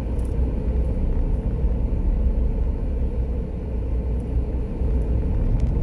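Steady low rumble of a car's engine and road noise.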